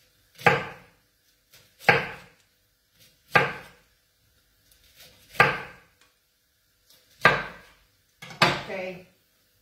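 Kitchen knife slicing through an artichoke on a wooden cutting board: six separate cuts, each ending in a knock of the blade on the board, about one every one and a half to two seconds.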